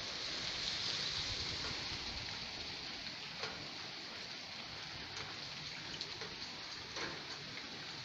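Steady rain hissing, with a few single drops ticking close by.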